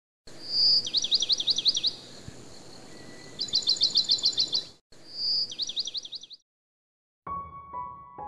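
A songbird singing three quick phrases, each a rapid run of high sweeping chirps, about eight a second, two of them opened by a short whistle, over a faint outdoor hiss. Soft piano music starts near the end.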